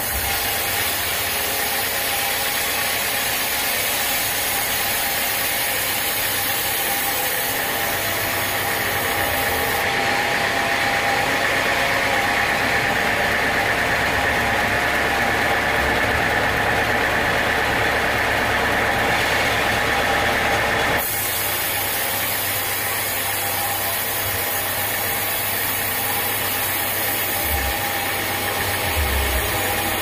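Band sawmill running steadily and sawing a teak log, a constant mechanical drone with a steady whine from the blade. The sound shifts abruptly twice, about a third and two-thirds of the way through.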